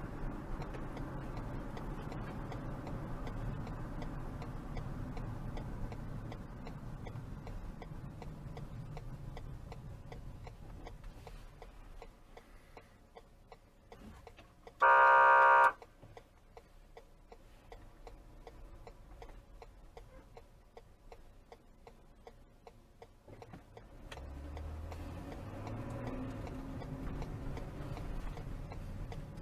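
Dashcam audio from inside a car: low road and engine rumble while driving, dropping to a quiet stretch with steady ticking while stopped at a red light. About halfway through, a single short, loud car horn blast. The rumble returns near the end as the car moves off.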